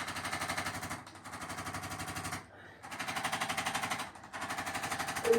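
Handheld percussion massager running on the muscles: a rapid, even stream of strokes in four bursts of one to two seconds, with short breaks between them.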